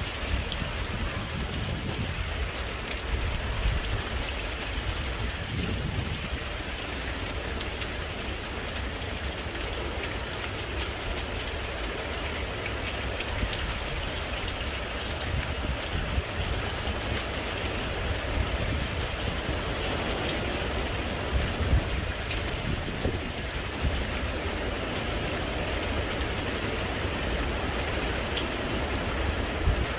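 Heavy rain falling steadily, with wind buffeting the microphone as a low rumble and scattered sharper drop hits.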